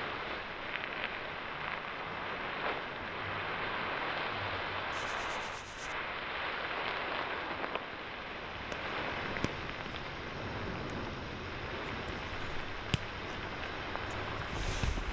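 A steady hiss of noise with a few sharp clicks scattered through the second half, and a low rumble swelling near the end.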